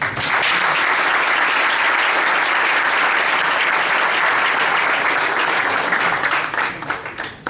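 Audience applause, a roomful of people clapping, starting at once and dying away near the end.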